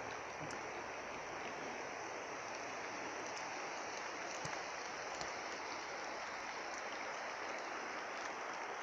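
Steady rushing of a small trout river's flowing water, an even wash without change, with a few faint ticks over it.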